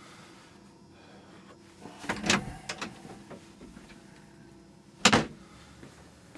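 A door being unlatched and opened, with a cluster of knocks and rattles about two seconds in, then a single loud bang, like a door shutting, about five seconds in.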